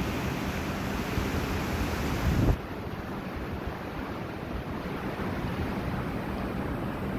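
Gusty wind in the wake of a hurricane buffeting the microphone, over the wash of choppy floodwater. The noise drops abruptly about two and a half seconds in as a gust eases.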